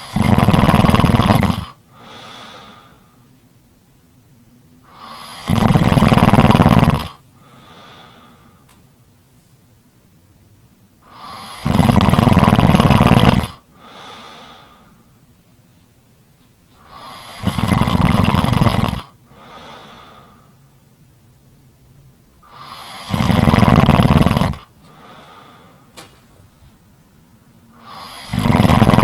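Loud snoring, one long snore about every six seconds, each followed by a short, much quieter breath out.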